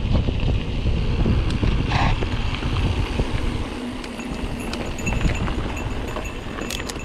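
Mountain bike rolling over a gravel track: tyre crunch and wind rumble on the camera microphone, with small rattles and clicks from the bike. A brief high squeak about two seconds in, and the rumble eases about four seconds in.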